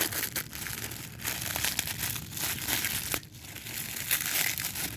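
Packaging crinkling and rustling as a small toy is unwrapped by hand, with a brief lull a little past three seconds in.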